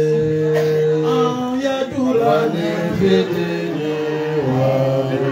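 A man chanting a religious song into a microphone, holding long drawn-out notes that shift in pitch every second or two.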